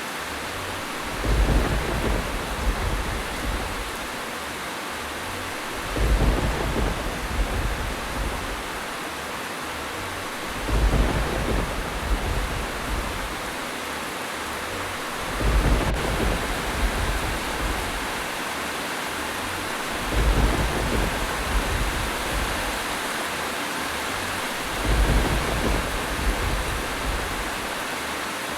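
Steady heavy rain with a low rumble of thunder swelling every five seconds or so, six times, at strikingly even intervals.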